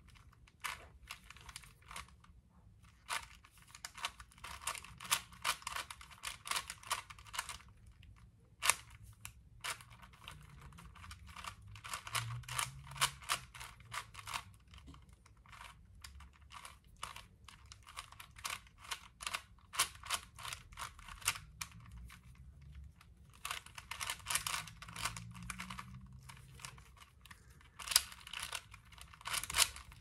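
Rubik's cube layers being turned by hand: quick runs of plastic clicking and clacking, in bursts of a few seconds with short pauses between them.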